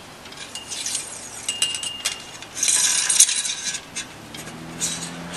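Metal fence wire being handled and pulled along a chain-link fence's top rail and brackets: scraping with light metallic clinks, loudest about three seconds in. A low steady hum comes in near the end.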